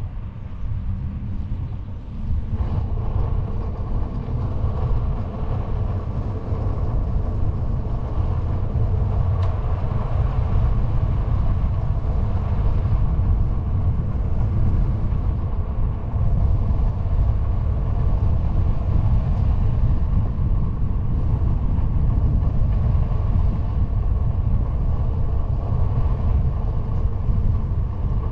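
Wind rushing over the microphone and the rolling hum of a knobby fat-bike tyre on asphalt, a steady rumble with a faint droning tone. It grows a little louder about two and a half seconds in.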